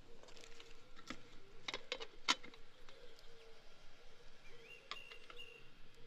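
A few sharp crackles and snaps of dry twigs and leaf litter, bunched together in the first half, the loudest about two seconds in. A short bird chirp comes near the end.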